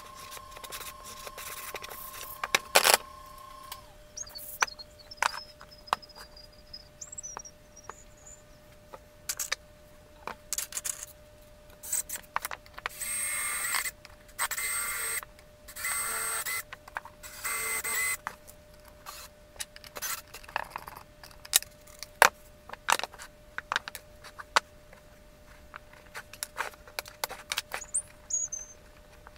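Cordless drill driving screws into plywood model parts in four short bursts of motor whine about halfway through, among many quick clicks and knocks of wooden pieces being handled and fitted.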